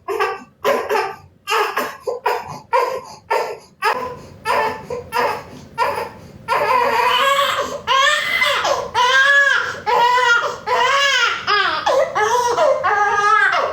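A baby crying: short, quick vocal bursts at first, then from about six seconds in, long, high, wailing cries one after another.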